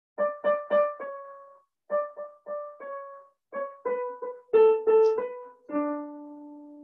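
Piano keyboard playing a single melody line note by note: a run of three repeated notes, short phrases separated by brief pauses, and a long held lower note near the end.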